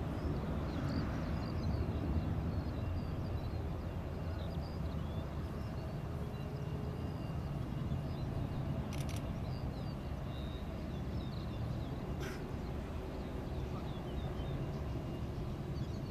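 Steady low rumble of an Airbus A380's Engine Alliance GP7270 turbofans at taxi power, with birds chirping throughout and two short clicks, one about nine seconds in and one about twelve.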